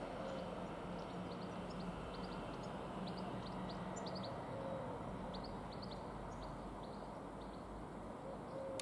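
Small birds chirping in many short, high calls over a faint, steady low rumble. A low hum under the rumble fades out about four seconds in.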